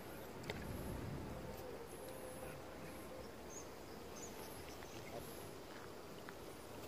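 Faint outdoor ambience: scattered small, high chirps from birds or insects over a steady low background hiss, with an on-and-off faint hum and a few light clicks.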